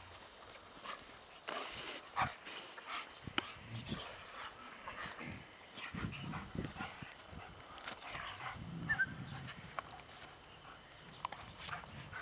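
A Belgian Malinois making short, irregular sounds while tugging and running on a long line, mixed with scattered clicks and footsteps on grass.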